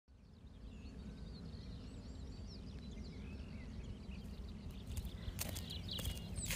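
Small birds chirping over a steady low rumble, then from about five seconds in, footsteps crunching on dry crop stubble.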